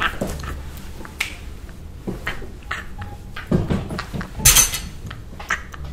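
A woman laughing loudly and yelling in excitement, among scattered clicks and taps, with a sharp, noisy burst about four and a half seconds in as the loudest moment.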